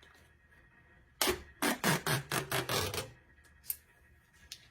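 The sealing strip of a new Canon toner cartridge being pulled out in a rapid series of short ripping tugs, lasting about two seconds, followed by a couple of light clicks.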